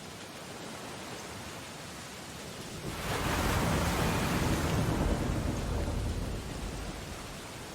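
Steady rain on window glass over a stormy ocean. About three seconds in, a deep rushing surge of storm noise swells up suddenly, holds for about three seconds and fades back into the rain.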